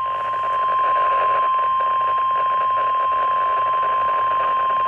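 NOAA Weather Radio warning alarm tone: one loud, steady high tone from a weather radio receiver, with a hiss beneath it. It signals that a warning message, here a severe thunderstorm warning, follows.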